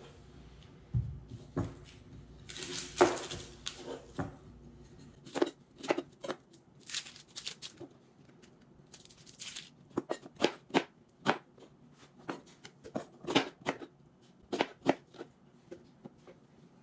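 A yellow onion being peeled by hand: dry papery skin crackling and tearing, with many short, sharp, irregular taps and clicks on a plastic cutting board.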